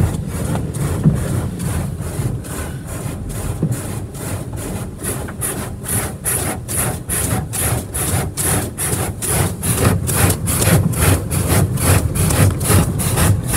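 Foam-cloth brush strips of an Autec Evolution soft-touch car wash slapping and rubbing across the car, heard from inside the cabin. It makes a steady swishing beat of about three strokes a second over a low rumble of the machinery, and it grows stronger toward the end.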